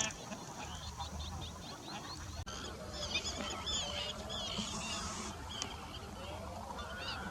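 A flock of bar-headed geese calling, many short honks overlapping, with a brief drop-out about two and a half seconds in before the calling grows denser.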